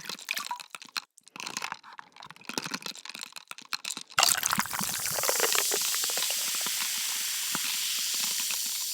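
Added sound effects: a rapid, irregular run of clicks and crackles, then from about four seconds in a sudden, steady hiss like rushing water or steam.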